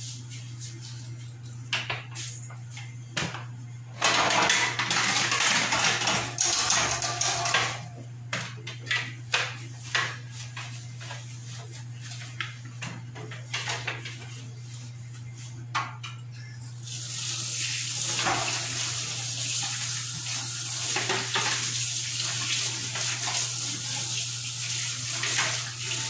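Wire refrigerator shelf and plastic fridge parts clinking and knocking against a sink as they are washed by hand, with water running from about four to eight seconds in and again steadily from about seventeen seconds in.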